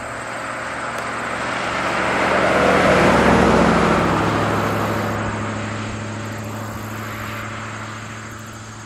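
A 1957 Mercury Monterey with a 1968 Lincoln 460 V8 drives past: its engine and tyre noise grow louder, peak about three seconds in, then fade as it moves away.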